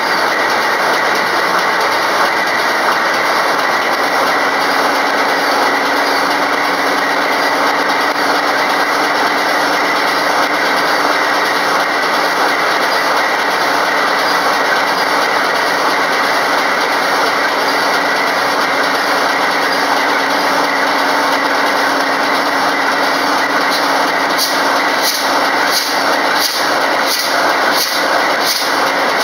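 A loud, steady hiss, even and unbroken, with a run of about seven evenly spaced clicks near the end.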